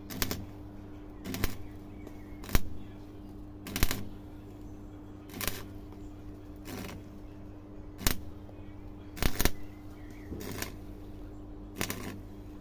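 Welder laying a row of short tack welds on car body sheet metal, about ten brief crackling bursts roughly a second apart, over a steady electrical hum.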